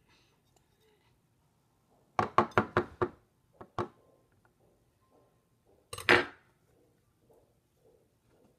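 Metal garlic press and a table knife clinking and knocking together: a quick run of about five taps a couple of seconds in, a single tap a second later, then one louder, longer clatter about six seconds in.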